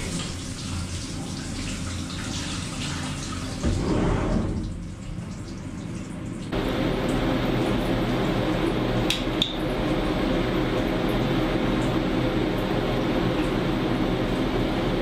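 Flood coolant spraying and splashing over an aluminium Subaru EJ22 engine block while a CNC machining centre bores a cylinder, with a louder surge about four seconds in. About six seconds in it gives way abruptly to a steady hum, with a couple of light clicks.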